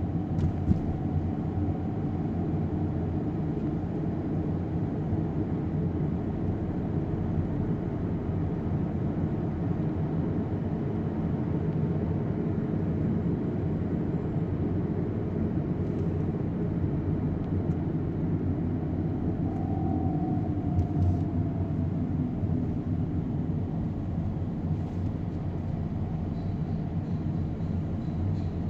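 Steady low rumble of vehicle traffic, without music.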